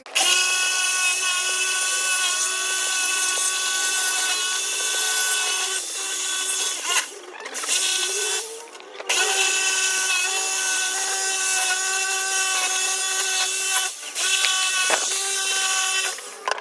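Small handheld electric power tool, drill-type, running with a steady high whine. It cuts out briefly a few times, and once slows and spins back up.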